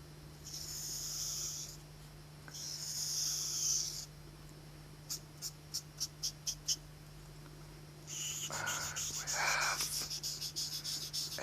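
Drawing on paper. Two long scratchy strokes come first, then a quick run of six or seven short strokes, then fast scribbling that starts about eight seconds in, over a steady low hum.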